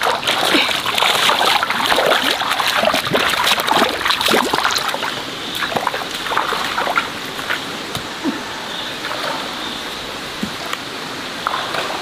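Splashing and sloshing of feet wading through shallow muddy pond water, busy for about the first five seconds, then thinning to a few scattered splashes over a faint steady hiss.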